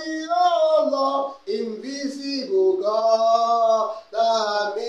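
A man singing a church praise song alone, in long held phrases with short breaths between them.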